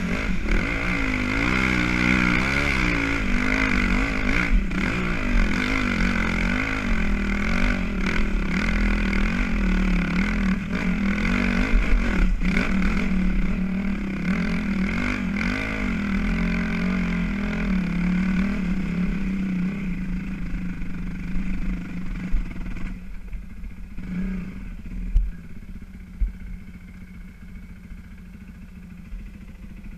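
Enduro motorcycle's single-cylinder engine, heard from a camera on the bike, revving up and down while riding a rough dirt trail uphill, with occasional knocks and clatters. About 23 seconds in it drops to a quieter, steady idle.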